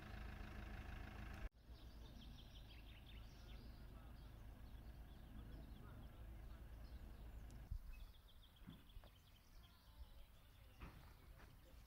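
Faint outdoor ambience with small birds chirping intermittently. A van engine idles at the start and stops abruptly about a second and a half in.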